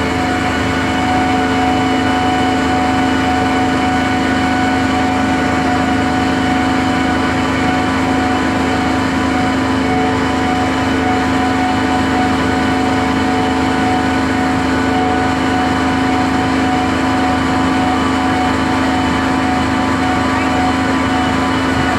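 An engine running steadily at a constant speed, with an even hum that does not change.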